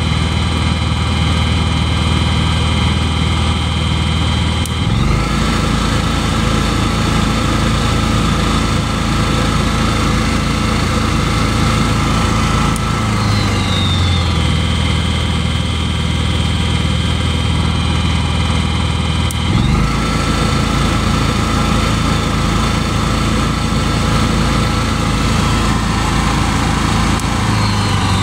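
Honda EU7000is inverter generator's fuel-injected single-cylinder engine running steadily on its first break-in run. Its engine note shifts between two speeds about four times, every seven to eight seconds.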